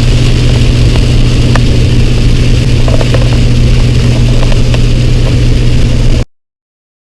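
Loud, steady low drone of a truck driving on the road, heard from inside the cab, with faint scattered ticks over it. The sound cuts off abruptly to dead silence about six seconds in, an audio dropout in the recording.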